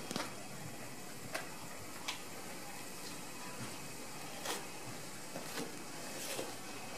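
Dog eating a raw rabbit: a few sharp, irregular crunches of bone and tearing over a steady background hiss.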